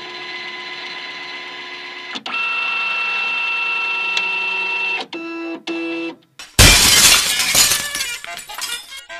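Intro sound effects: a steady electronic drone that shifts to a higher pitch with a click about two seconds in, then two short tones and a brief gap. About six and a half seconds in, a loud glass-shattering effect comes in and dies away over the next two seconds.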